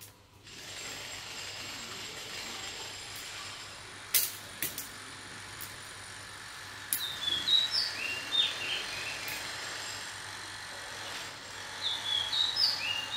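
Steady background noise with a small bird chirping in two short runs of quick, high notes, about seven seconds in and again near the end. A couple of sharp taps about four seconds in.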